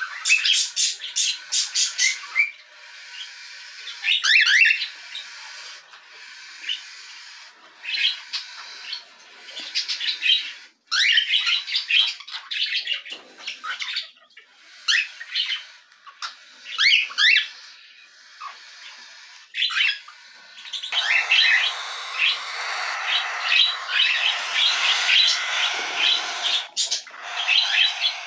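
Cockatiels calling in short bursts of chirps and squawks, a group every few seconds. In the last third the calls run together into a denser, continuous chorus.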